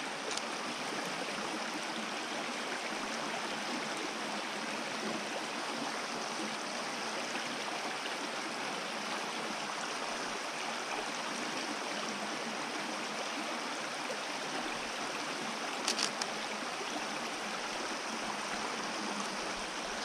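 Shallow, rocky woodland stream running over stones: a steady rush and trickle of water. A couple of short clicks about sixteen seconds in.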